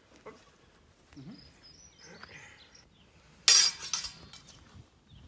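Two swords clashing: one sharp, loud metallic clang with a short ring about three and a half seconds in, followed by a couple of lighter clinks of blade on blade. Fainter rustling and scraping come before it.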